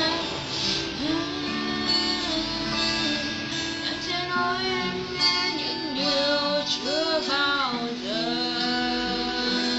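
A woman singing a slow song over guitar accompaniment.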